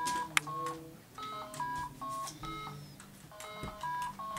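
Handheld electronic pattern-memory game in the style of Simon beeping out its sequence: short electronic tones at several different pitches, about two or three a second, each colour of the pattern sounding its own note. A sharp click about half a second in is the loudest sound.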